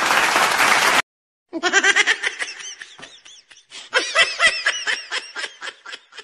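A person laughing in rapid, high-pitched bursts that come loudly in two waves and then fade, after a noisy din cuts off abruptly about a second in.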